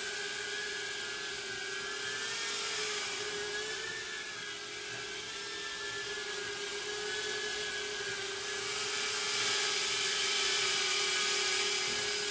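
Mirarobot S60 FPV Butterfly micro quadcopter's brushed motors and propellers whining as it hovers and flies, a steady high buzz that wavers slightly in pitch and swells gently in loudness as the throttle changes.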